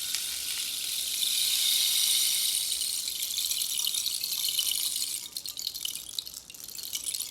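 Bamboo rain stick being tipped, its pellets cascading inside with a rain-like hiss that swells in the first couple of seconds and then thins out to scattered patters from about five seconds in.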